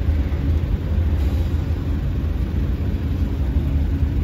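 Steady low rumble of a car on the move, heard from inside the cabin: engine and road noise with no changes.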